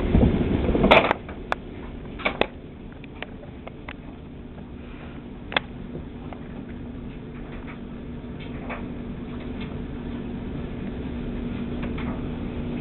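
Camera handling rumble for about the first second, then a few sharp light taps and clicks from a kitten at play with a small ball and a paper bag, over a steady low hum.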